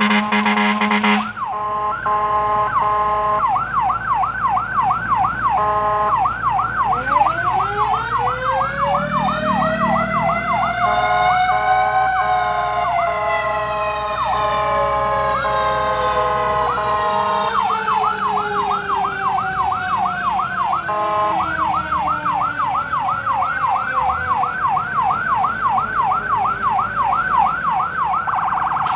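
Emergency vehicle sirens on a fire and rescue response: an electronic yelp sweeping rapidly up and down, about four times a second. From about seven seconds in a second siren's wail joins it, rising to a peak a few seconds later and then slowly falling away.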